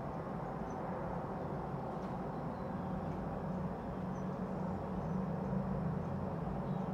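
Steady low background hum and rumble with no clear single source, and a few faint, short high chirps.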